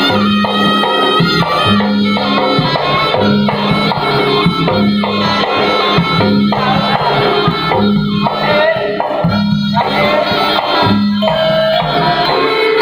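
Javanese jaranan gamelan music played live: a nasal reed shawm (slompret) carries the melody over gongs and drums, with a low beat about once a second.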